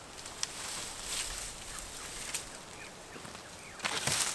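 Dry dead sticks cracking and snapping with brushy rustling as branches are broken and gathered for firewood: a few sharp cracks, the loudest burst about four seconds in.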